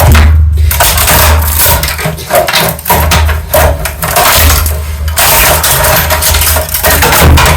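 HP Color LaserJet M255dw printer being pried and broken apart with a pry bar: loud, irregular cracking, crashing and scraping of its casing and parts, with knocks and rattles throughout.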